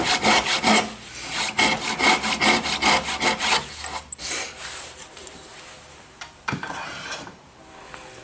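A hand backsaw cutting a dovetail into a wooden baluster with quick, even back-and-forth strokes that stop about three and a half seconds in. One sharp knock follows later.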